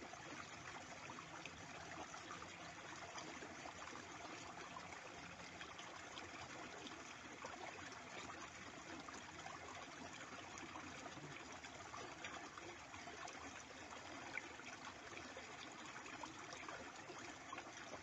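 A small, shallow stream running steadily: a faint, even babble of flowing water.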